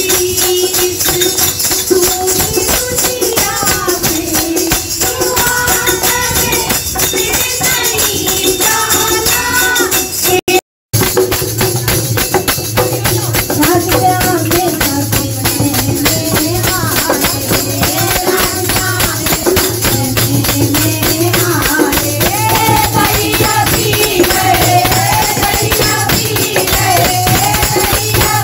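Kirtan: women singing a devotional song to a dholak, with hand-clapping and jingling percussion keeping the beat. The sound cuts out briefly about ten seconds in.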